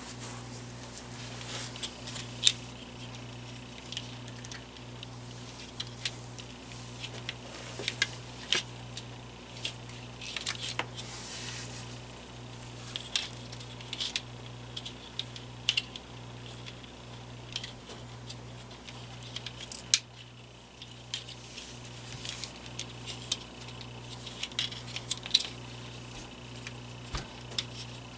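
Scattered small clicks, ticks and light rattles of hands working on the fan's wiring and small parts, over a steady low hum.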